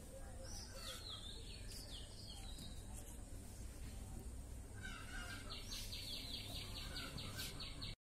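Faint outdoor ambience with small birds chirping: a few falling chirps in the first two seconds, then a quick run of short high chirps from about five and a half seconds in, over a low steady background hum.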